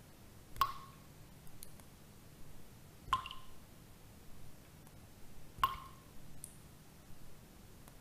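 Water dripping slowly and steadily: three drops about two and a half seconds apart, each a short ringing plink, with fainter ticks between them.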